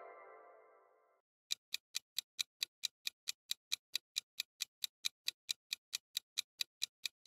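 A clock-ticking sound effect, even ticks at about four to five a second, counts down thinking time for a quiz question. Before it, the tail of a pitched musical sting fades out during the first second.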